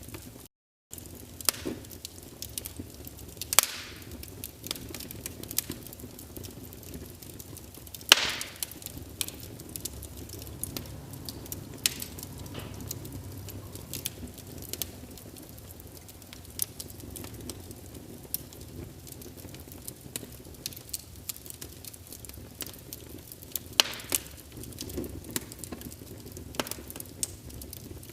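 Wood fire crackling, with irregular sharp pops over a steady low rumble of flames; the loudest pops come about 8 and 24 seconds in. The sound drops out for about half a second right at the start.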